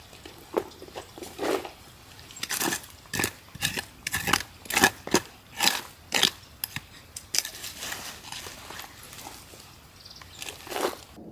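A quick series of sharp clicks and knocks from hard objects, about two a second, busiest in the middle and thinning out near the end.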